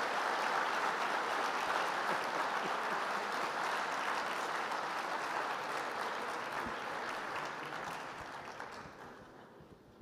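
Audience applauding steadily, dying away over the last two seconds.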